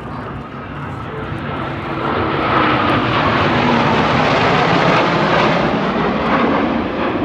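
Blue Angels F/A-18 jets flying past, the jet engine noise building about two seconds in and falling in pitch as they go by.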